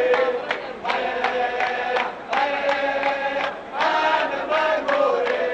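Crowd of spectators chanting together in four held, sung phrases of a second or so each, with short breaks between them.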